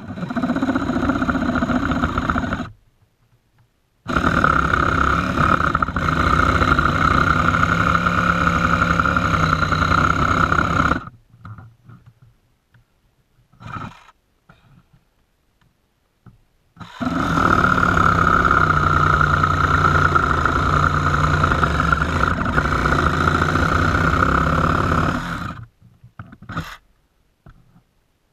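Ryobi reciprocating saw cutting in three long runs of several seconds each, with a few short trigger blips between them.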